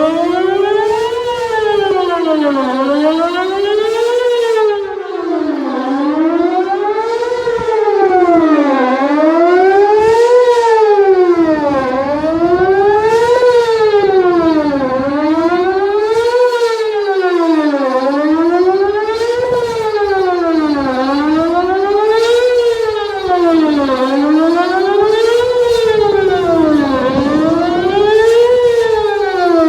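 Whelen WPS 2810 electronic outdoor warning siren sounding a wail during a siren test. Its tone rises and falls smoothly, about one cycle every three seconds.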